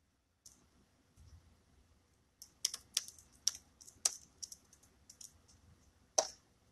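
A quick, irregular run of light clicks and taps, like typing, with one louder knock near the end.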